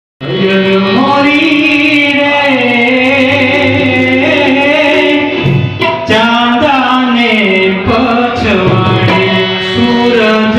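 Gujarati folk song (lokgeet) played live: a man singing into a microphone, accompanied by harmonium and tabla.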